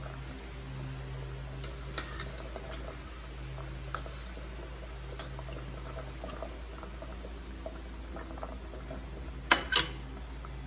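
Squash chunks boiling in water in a stainless steel pot, stirred with a ladle that clinks against the pot now and then, with two louder clanks close together near the end. A steady low hum runs underneath.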